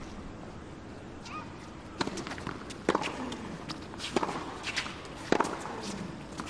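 Tennis ball struck by racquets in a hard-court rally: a series of sharp pocks about a second apart, starting about two seconds in, over a quiet crowd.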